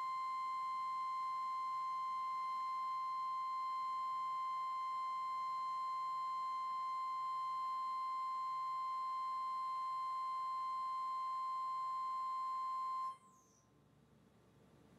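A 4-flute, 10 mm square end mill slot-milling SUS304 stainless steel at 2,900 rpm, heard as one steady high-pitched squeal with overtones. The squeal cuts off suddenly near the end.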